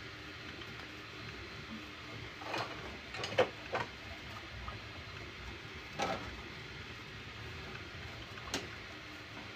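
Desktop 3D printer running mid-print with a steady low hum, broken by a few sharp clicks: a quick cluster about three seconds in, one at about six seconds and one near the end.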